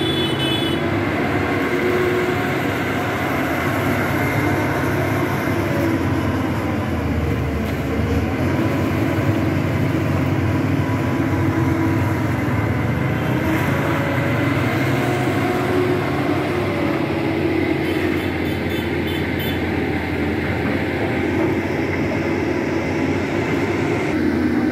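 Crawler excavator's diesel engine running steadily while the boom and bucket work, with brief high squeals at the very start and again about three-quarters of the way through.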